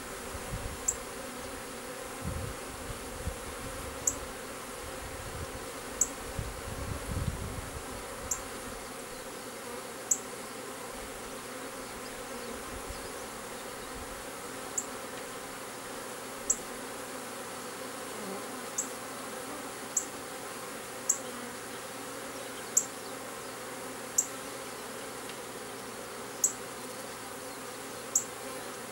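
A honeybee swarm moving into a swarm trap box, many bees in flight giving a steady buzzing hum. Short, sharp, high-pitched chirps sound every second or two over it and are the loudest sounds, with a low rumble in the first several seconds.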